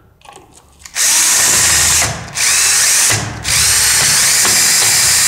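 Cordless drill/driver driving a screw in three runs: one of about a second, a shorter one, then a longer one of about two and a half seconds, each starting with a rising whine as the motor spins up.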